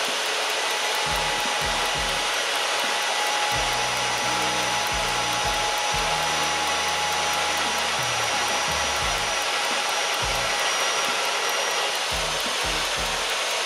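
Jepson MagPro 35 Kompakt magnetic drill running steadily under load, its motor giving an even whine, as a twist drill bit cuts through a steel beam.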